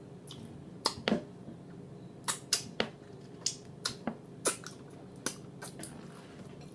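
Close-up chewing and mouth smacking on fried food: a string of sharp, irregular wet clicks and crunches, about a dozen over a few seconds.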